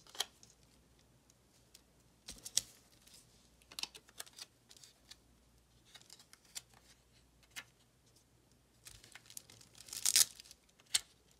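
Paper stickers being peeled off their backing and handled, in scattered short crackles and rustles. The longest and loudest peel comes about ten seconds in.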